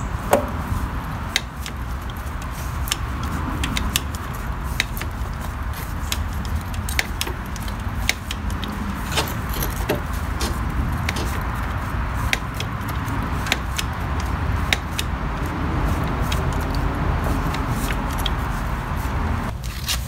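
A hand-lever grease gun being pumped stroke after stroke into the blade-spindle grease fitting of a mower deck. Each stroke gives a short sharp click, roughly one or two a second, over a steady low background rumble.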